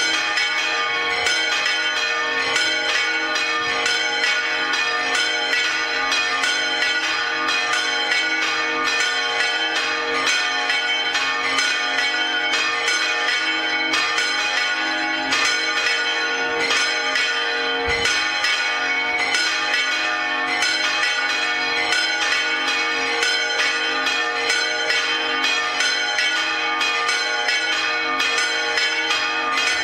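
Several church bells swinging full circle in the Spanish volteo style, their clappers striking over and over in a dense, continuous peal of overlapping clangs.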